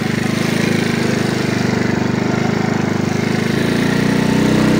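Motorcycle engine running steadily under way at low speed, its revs changing a little about three and a half seconds in and picking up slightly near the end.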